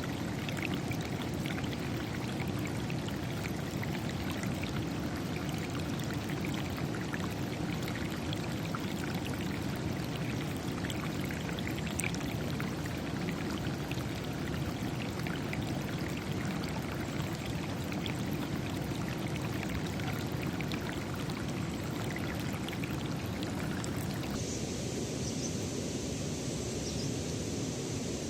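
Stream water rushing and splashing steadily, with small droplet splashes over the rush. About 24 seconds in, the sound changes abruptly to a thinner, hissier rush.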